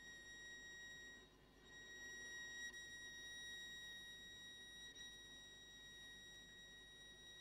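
Viola bowed on one quiet, high, sustained note, held steady and nearly pure in tone, thinning out briefly about a second in before carrying on.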